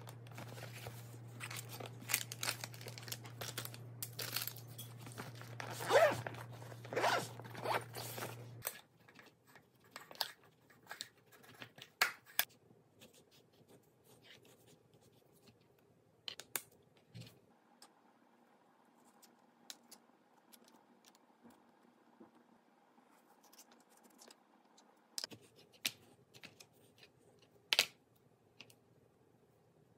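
A fabric lunch bag being handled and its zipper rasped open and shut, over a low steady hum. Then, for most of the rest, a knife on a plastic cutting board gives scattered clicks and taps as an avocado is cut and twisted apart.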